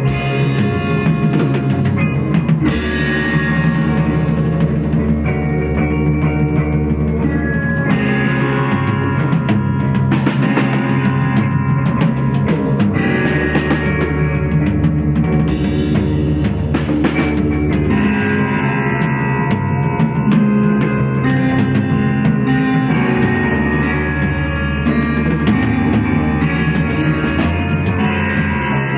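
Rock-style jam of a drum kit and guitar over a sustained drone tone, with the held chord changing a couple of times.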